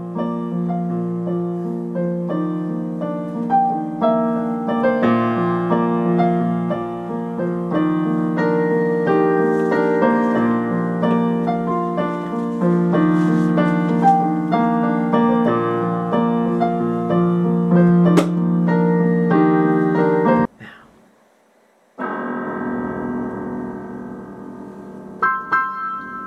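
Digital piano played with both hands: a continuous run of melody notes over a repeating low bass line. About twenty seconds in it cuts off suddenly, and after a short silence a slower passage of held chords begins.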